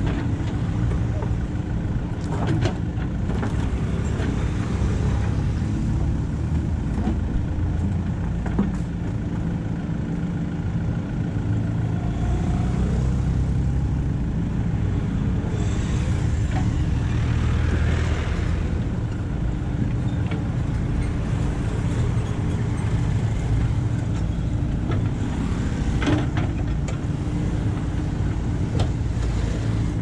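JCB 3DX backhoe loader's diesel engine running steadily under load while the bucket digs, with scattered knocks and scrapes of the bucket in the soil. Around the middle comes a longer rush as a bucketful of soil is tipped into the truck's bed.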